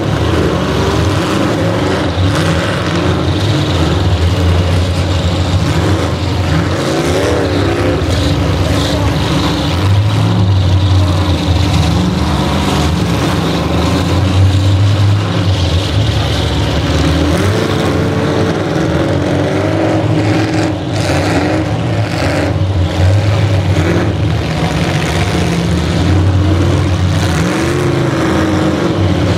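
Several demolition-derby car engines running and revving at once, their pitch rising and falling over and over, with a few sharp knocks about two-thirds of the way through.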